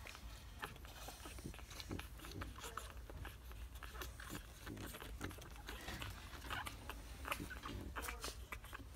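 Week-old French Bulldog puppies nursing on their mother: faint, irregular wet suckling and smacking clicks.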